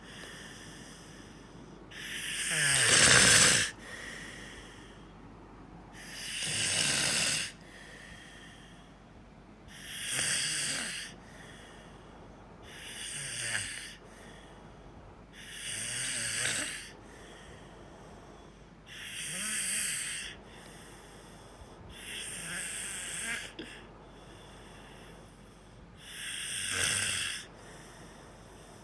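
Snoring at a slow, steady pace: eight breathy snores about every three to four seconds, each lasting a second or so. The first is the loudest, with a low rattle in it.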